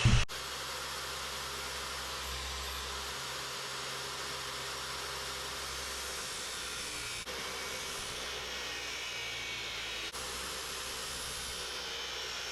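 Chop saw running steadily, cutting mild steel into short pieces. It makes an even whirring hiss, broken by two brief dropouts about seven and ten seconds in.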